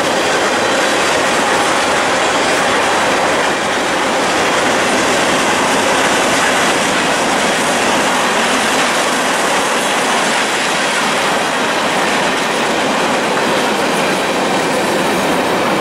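Steady wheel-on-rail noise of a CSX freight train's tank cars and covered hopper cars rolling past.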